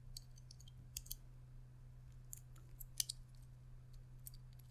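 Faint, sharp little plastic clicks and taps as a small switch is handled and pushed into a 3D-printed plastic module, the loudest about three seconds in, over a low steady hum.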